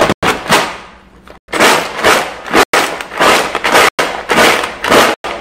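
Rummaging through colouring supplies to find a blue: a run of loud rattling, clattering bursts with short breaks between them.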